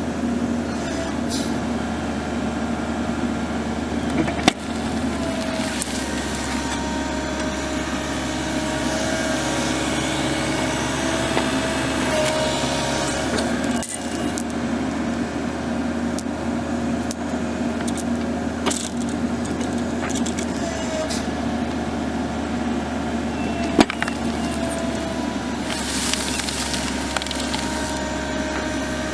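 Machinery running steadily, with a low hum and a wavering higher whine, broken by two sharp cracks.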